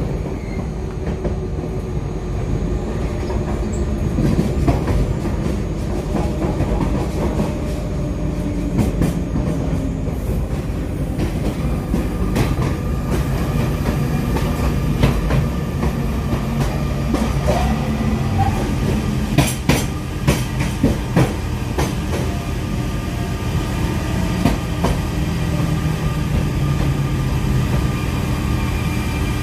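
Cabin noise of a Z20500 double-deck electric train running on the line: a steady rumble of wheels on rail with a low hum. About twenty seconds in comes a quick run of sharp clicks from the wheels over rail joints or points.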